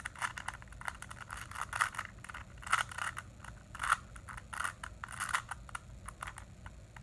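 A plastic Rubik's cube having its layers turned quickly by hand: an irregular run of clicks and short rasping scrapes, several a second, with a few louder snaps.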